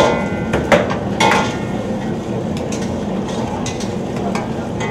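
Steel ladle stirring a thick curry in a steel pan, striking the pan with a ringing clink three times in the first second and a half, then lighter taps, over a steady background hiss.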